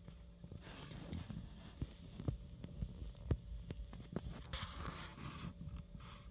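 Faint scattered clicks and soft rustling, with a short hissing rustle about four and a half seconds in.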